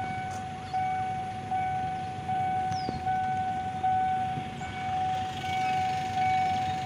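Railway level-crossing warning bell ringing: one steady high tone rung over and over, about once every 0.8 seconds, each ring swelling and then fading. It is the crossing's alarm that a train is approaching.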